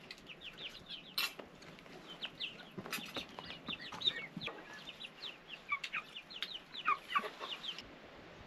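Chicks peeping: many short, high chirps that fall in pitch, several a second, with a sharp knock about a second in and another about three seconds in.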